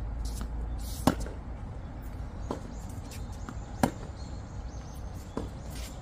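Tennis rally on a hard court: two sharp racket-on-ball hits close by, about a second in and again near four seconds, with fainter ball pops from the far side of the court between them.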